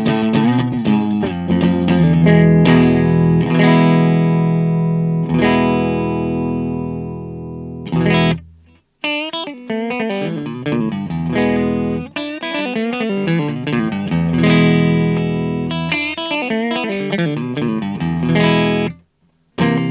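Aria Pro II electric guitar played through an amplifier: held, ringing chords fade slowly over the first several seconds. After a short stop about nine seconds in come quicker picked notes and runs, cut off by another short gap near the end.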